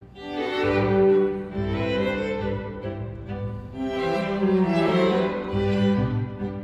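A string chamber ensemble, violins, viola, cello and double bass, playing a slow, lyrical passage of long bowed notes over low bass notes, swelling and easing in two phrases.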